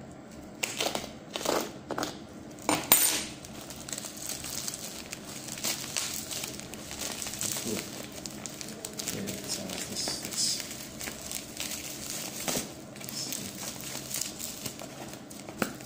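Plastic courier mailer and its packaging crinkling and crackling as it is torn and pulled open by hand, with a few louder, sharp crackles in the first three seconds and steady rustling after.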